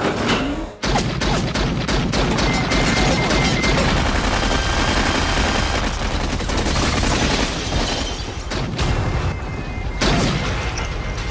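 Movie action soundtrack: a helicopter's machine gun firing in rapid repeated bursts at a crane cab, with shattering glass and helicopter noise over an orchestral score.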